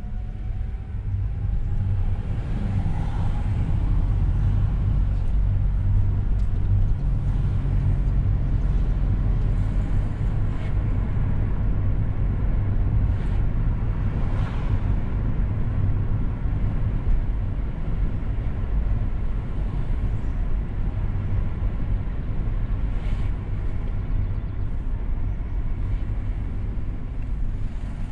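Car engine and tyre rumble heard from inside the cabin as the car pulls away and drives on. It grows louder over the first couple of seconds, then runs steadily.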